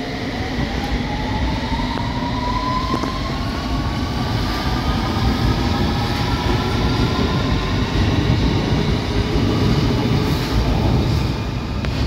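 London Underground S Stock train accelerating: its traction motors whine in several tones that rise steadily in pitch over the rumble of the wheels on the track.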